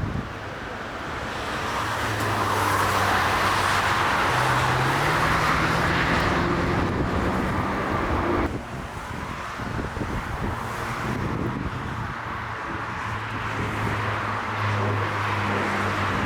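Jet airliner engine noise building to a loud, steady roar, cut off abruptly about halfway through, followed by a lower, steadier engine hum.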